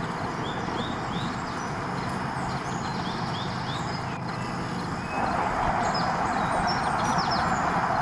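Small birds chirping, with short rising chirps repeated in little runs, over a steady rushing background noise that gets louder about five seconds in.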